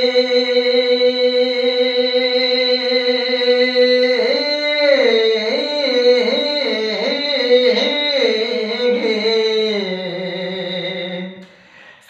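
A man singing a Telugu verse in drawn-out raagam style: one long held note for about four seconds, then a wavering, ornamented run of notes that steps gradually lower and stops about a second before the end.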